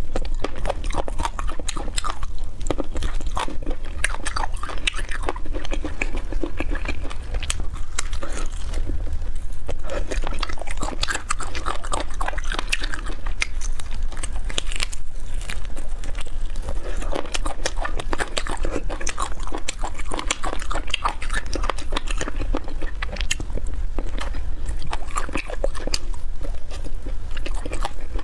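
Close-miked eating sounds: biting, chewing, sucking and lip-smacking as chili-coated braised meat is gnawed off small bones, in a dense, irregular stream over a steady low hum.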